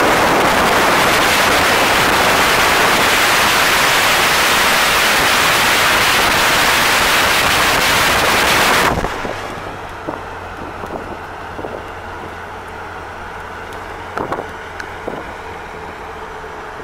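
Wind rushing over the microphone of a moving 1964 Pontiac Bonneville, loud for about nine seconds and then cut off suddenly. It leaves the car's steady low engine and road hum, with a few faint clicks.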